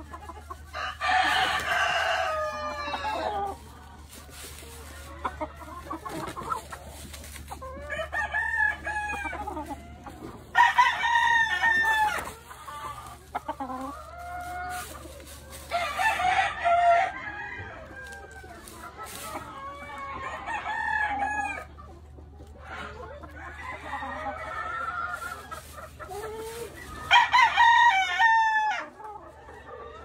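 Gamefowl roosters crowing, four loud drawn-out crows spread through the stretch, with quieter clucking and calls from the flock between them.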